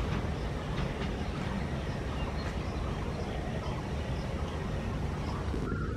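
Diesel-hauled freight train of loaded oil tank wagons rolling away along the track: a steady low rumble.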